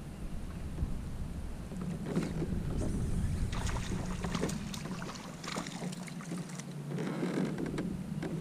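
Water splashing and knocking around a fishing kayak, in irregular bursts over a low, steady rumble.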